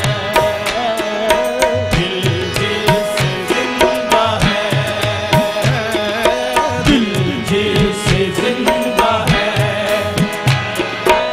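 Qawwali accompaniment: harmonium playing the melody in held and moving notes over a fast, steady tabla rhythm.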